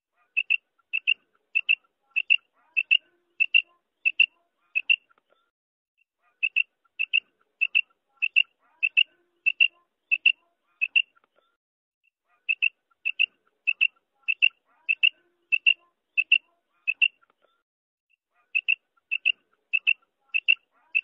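Female quail calling: short, sharp, high notes about three a second, in runs of several seconds broken by short pauses, repeating evenly as a looped call of the kind used to lure quail for hunting.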